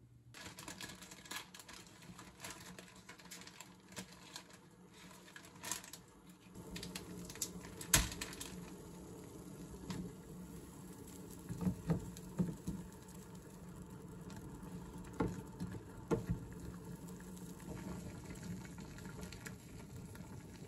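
Water in a stainless steel saucepan on an electric cooktop, fizzing and crackling as it heats, then boiling with a fuller bubbling from about six seconds in. A sharp knock comes about eight seconds in, and several lighter knocks follow as the instant noodles go in and are stirred with chopsticks against the pot.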